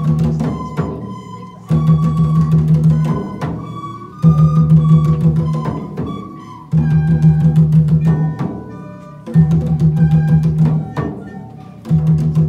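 Children's ensemble of hand drums and recorders playing a repeating phrase: a loud run of quick drum strokes returns about every two and a half seconds, with steady recorder notes above.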